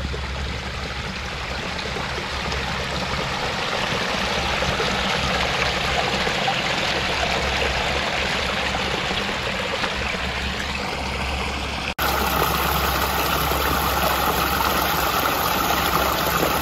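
Water from a small pondless waterfall running and splashing down a short rock-lined stream: a steady rush of falling water. About twelve seconds in it drops out for an instant and comes back a little louder and brighter.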